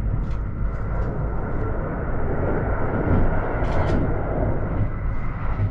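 Kintetsu Shimakaze (50000 series) electric train running at speed, heard from inside the car: a steady low rumble of wheels on rail and running gear that swells a little about halfway through, with a few light clicks.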